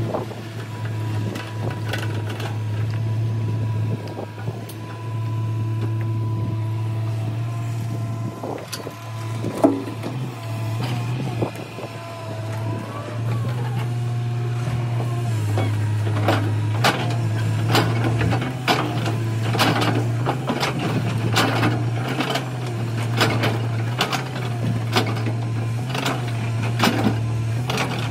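L&T Komatsu crawler excavator's diesel engine running steadily under load, with thin hydraulic whines in the first half. From about halfway on, many sharp clanks and scrapes come as the steel bucket digs into stony soil.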